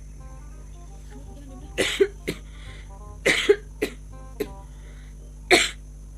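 A person coughing in short, sharp coughs at irregular gaps of about a second, some in quick pairs. The coughing is put on, as part of a fake coughing-up-blood prank.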